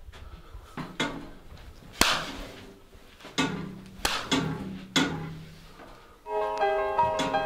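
Punches landing in a beating, about six hard hits in four seconds, the loudest about two seconds in, over a low string drone. A slow piano melody comes in about six seconds in.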